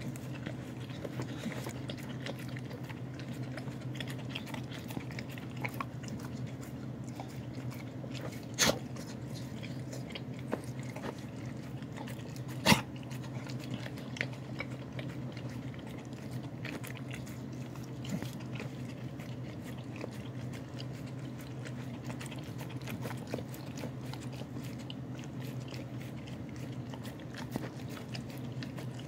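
A dog eating from a bowl, licking and chewing with many small irregular clicks and smacks. Two sharper knocks stand out, about a third of the way in and again a little before halfway, over a steady low hum.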